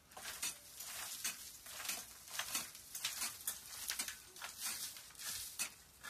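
Pickaxe striking a cave's rock ceiling over and over, sharp chipping blows coming about two to three a second.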